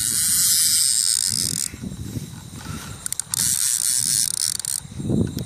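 Baitcasting reel's spool spinning fast as the kite pulls line off it, a high whir that stops about two seconds in and starts again for over a second near the end, with scattered clicks from the reel.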